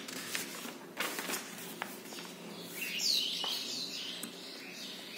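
Paper rustling and soft clicks as textbook pages are turned. About three seconds in, a bird chirps a short run of quick falling notes, the loudest sound here.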